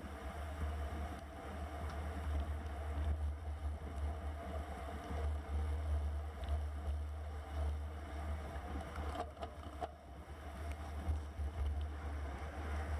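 Wind rushing over a bicycle-mounted camera's microphone while riding at speed, a steady low rumble, with the hiss of tyres on a wet road. A few brief clicks about nine to ten seconds in.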